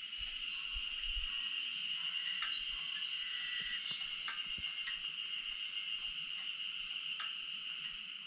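Insects calling in a steady, unbroken high-pitched chorus, with a few faint ticks.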